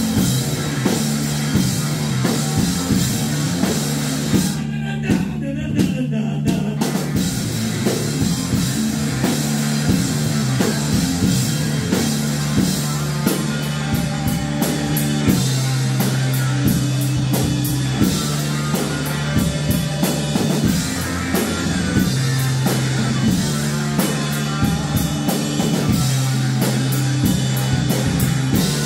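Live rock band playing an instrumental passage on electric guitar, bass guitar and drum kit. About five seconds in there is a short break where only the low notes carry on before the full band comes back in.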